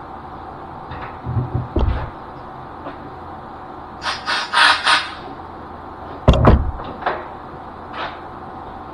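Hand-handling knocks and clatter at a metal lathe over a steady machine hum: a couple of dull thumps, a burst of rattling about four seconds in, then a heavy thump a second later and a few light clicks.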